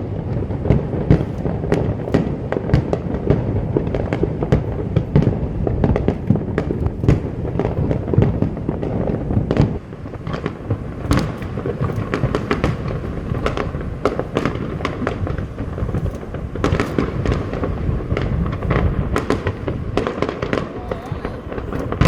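Aerial fireworks display: a dense, continuous barrage of bangs and crackling bursts, easing briefly about ten seconds in before carrying on.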